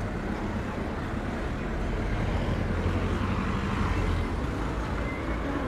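A car driving past close by, its engine and tyre rumble swelling from about two seconds in and easing off near the end, over steady street traffic.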